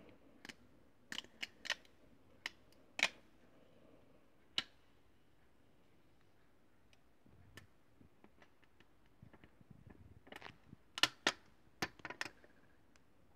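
Clear plastic protective film being peeled and handled off a new phone touch-screen glass, giving irregular sharp clicks and crackles, with a quiet spell in the middle and a cluster of the loudest clicks near the end.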